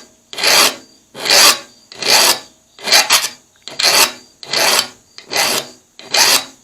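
Triangular metal file rasping down the beveled steel edge of cheap kitchen shears in about seven even strokes, roughly one a second, sharpening the bevel and taking off the tool marks.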